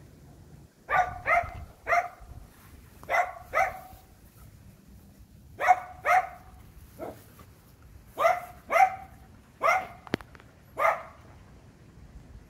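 Pomeranian barking: about a dozen short, sharp, high-pitched barks, mostly in quick pairs, with pauses between the pairs.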